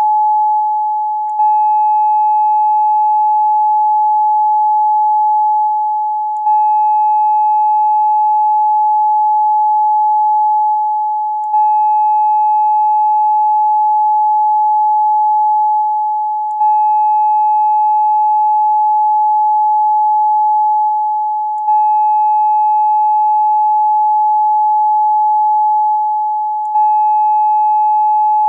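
A steady 852 Hz pure electronic tone with fainter higher tones above it. Its loudness sags slightly and then jumps back up about every five seconds.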